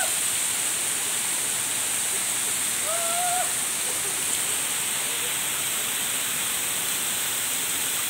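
Waterfall pouring down a sheer rock face close by: a steady, dense rush of falling water and spray.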